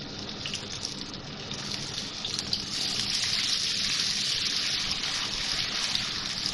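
Garlic-ginger paste sizzling as it fries in hot oil, stirred in the pan; the sizzle swells louder about two and a half seconds in.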